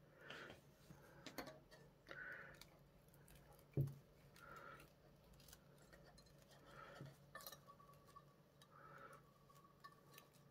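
Faint rustling of stiff sinamay being handled, folded and pressed around a curved edge, in several short patches, with a few light clicks and one soft knock about four seconds in.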